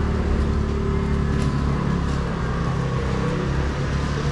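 A steady low engine drone, with no clear change in pitch or level.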